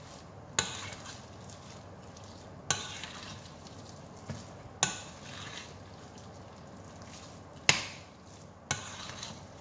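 Thick batter being mixed by hand in a glass mixing bowl: the utensil knocks against the glass about six times at uneven intervals, the loudest knock near the end, with soft scraping through the batter after each stroke.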